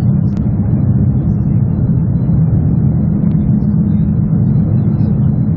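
Cabin noise of a superconducting maglev train flying levitated through a tunnel while accelerating past 320–330 km/h: a loud, steady low rumble.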